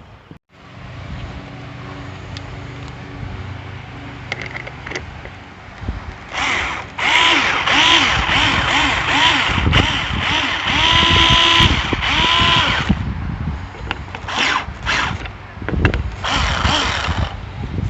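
Power drill run in a series of bursts, its motor whine rising in pitch as it spins up and falling as it winds down, with the longest run from about six to thirteen seconds in and a few short bursts near the end.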